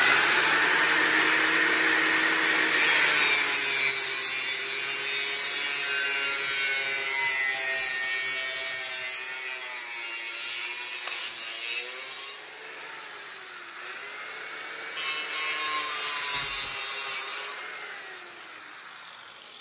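Corded angle grinder with a cutoff disc cutting into the boiler of a Wilesco model steam engine held in a vise. The motor tone sags and wavers as the disc bites. It eases off about twelve seconds in, cuts again a few seconds later, then dies down near the end.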